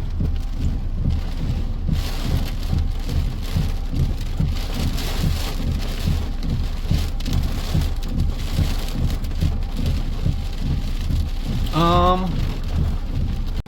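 Heavy thunderstorm rain drumming hard and irregularly, with a dense low pounding throughout. About twelve seconds in, a short rising voice-like cry cuts through.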